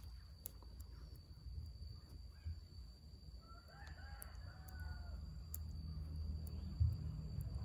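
A rooster crowing faintly, once, about halfway through, over a low steady rumble.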